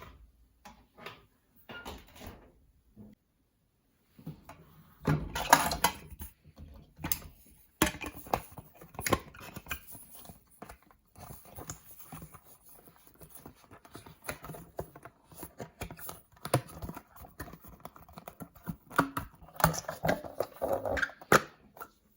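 Dried white beans clicking and rattling against a container as they are handled, with louder rushes of rattling about five seconds in and again near the end as they are poured.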